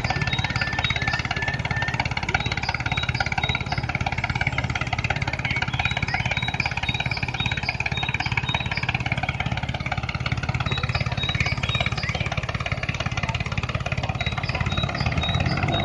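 Small motors of wired toy tractors running steadily under load, a dense buzzing rattle that does not let up, while the tractors strain against each other in stones and sand. Faint short high blips repeat at even spacing over it.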